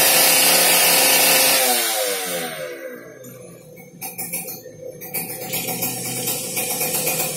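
A small engine running at high revs, then winding down with a falling pitch over about a second and a half. Background music comes in near the end.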